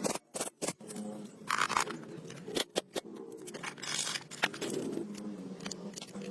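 Handling noise: a scattering of sharp clicks and short scrapes, irregularly spaced, over a faint low hum.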